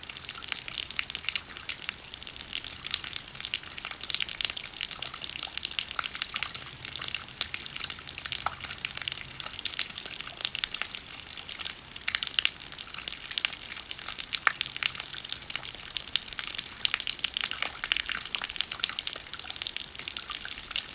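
Rain drops falling steadily: a dense run of many small, sharp drop ticks over a hiss of rain.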